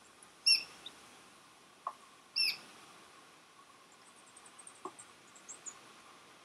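Chestnut teal duckling peeping: two loud, high-pitched peeps about two seconds apart.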